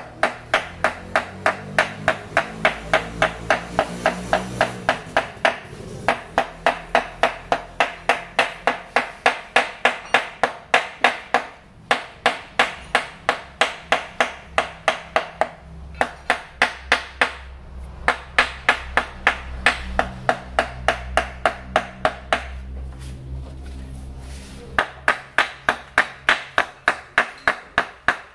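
Hand hammer tapping rapidly on a diesel engine's cylinder block at the cylinder bores, about three to four blows a second, each with a metallic ring. The blows come in runs of several seconds with short pauses, the longest near the end before a final run.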